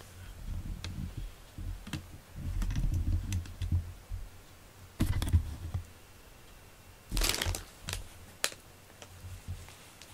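Irregular low rubbing thumps and rustles with scattered light clicks, handling noise close to the microphone.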